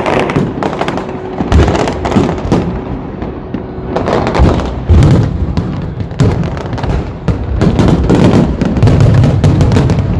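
Fireworks going off in a dense barrage: many sharp bangs and crackles overlapping, with heavier booms about half a second in, near five seconds, and again near the end.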